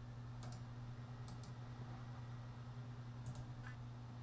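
A few faint, sharp clicks, some in quick pairs, over a steady low hum.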